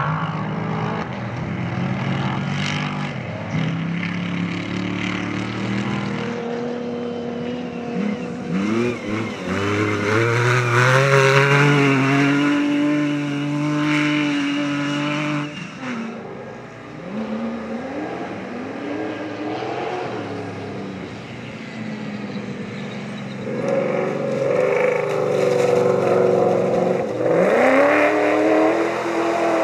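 Off-road rally cars' engines revving and accelerating hard, the engine note climbing again and again as they pull away, over several passes, loudest about a third of the way in and again near the end.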